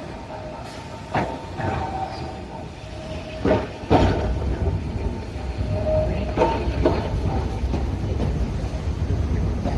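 Asunarou Railway narrow-gauge electric train running, with a handful of sharp, irregular wheel knocks over the rail joints. A low rumble grows louder about four seconds in.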